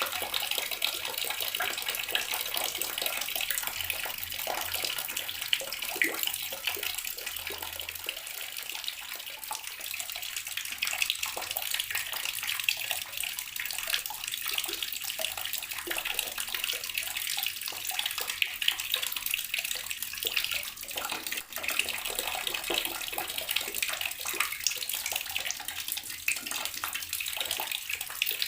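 Water running steadily from a tap and splashing into water below, a continuous bright, spattering rush.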